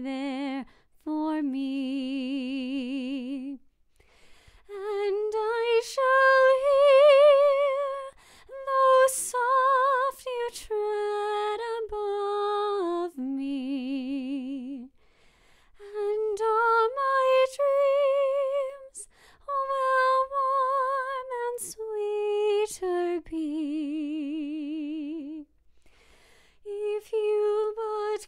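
A woman singing unaccompanied: a slow melody with marked vibrato, sung in phrases of a few seconds separated by short pauses.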